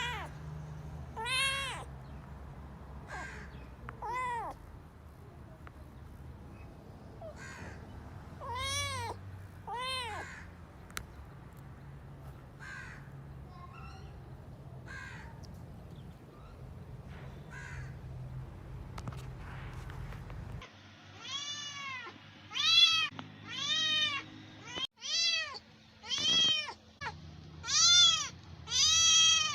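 Cats meowing: separate drawn-out meows spaced a few seconds apart over a low hum. About two-thirds of the way through, the background changes and louder meows come in quick succession, about one a second.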